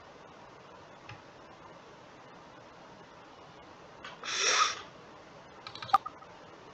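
Quiet room tone, broken about four seconds in by a short breathy exhale, then a few light clicks and one sharp computer-mouse click near the end.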